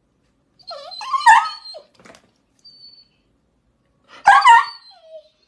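A dog giving two short whining yelps, the first about half a second in and the second near the end, with a pitch that wavers up and down.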